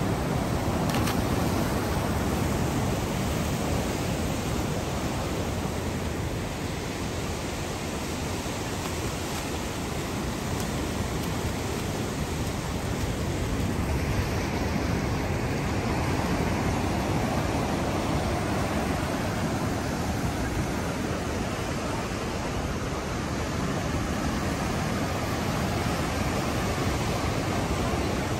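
Sea waves and surf washing steadily, an even noise with no distinct splashes or other events.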